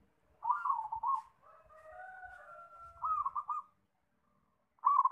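Zebra dove (perkutut) cooing: a short phrase of rolling coo notes about half a second in, a quick run of staccato coos around three seconds in, and another run starting just before the end.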